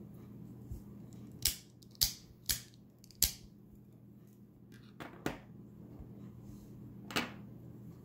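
Miniature keychain OTF (out-the-front) knife's spring-driven blade firing out and snapping back under the thumb slider: a series of sharp metallic clicks, four in quick succession between about one and a half and three seconds in, then more around five and seven seconds. A faint steady hum runs underneath.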